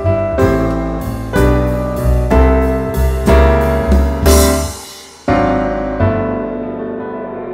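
Background piano music: chords struck about once a second, a brief drop in level near five seconds in, then a new chord that rings on and slowly fades.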